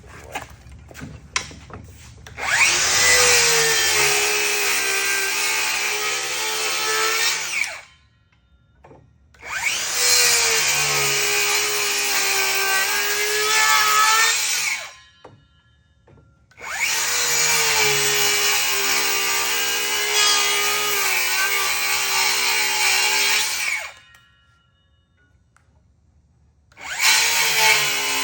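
A handheld power tool cutting into a wood slab's edge to carve a natural-looking curve. It runs in four bursts of about five to seven seconds with short pauses between, its whine wavering as it bites into the wood. A few light knocks come before the first run.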